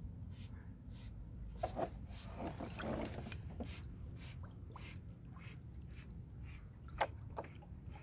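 Miniature schnauzer swimming close by, snorting and breathing hard through its nose, with a cluster of rougher snorts about two to three seconds in. Short splashes and a sharp click about seven seconds in sound over a steady low rumble.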